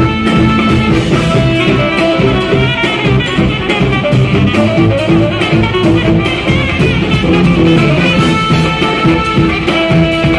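Live jazz-funk band playing loud and without a break: a saxophone section and trumpet hold long notes over electric bass and drums.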